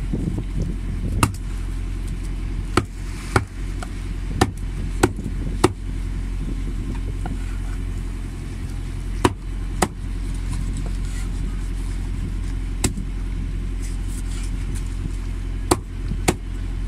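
A large knife chopping through a great barracuda and striking the wooden board beneath, about a dozen sharp, unevenly spaced strikes as the fish is cut into steaks. Under it runs the steady low hum of an idling engine.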